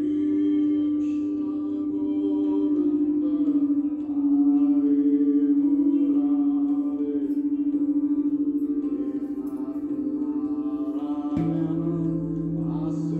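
Singing bowls ringing: one long, steady tone with a quick pulsing waver in its loudness. About eleven seconds in, a fresh strike adds a second, lower ringing tone.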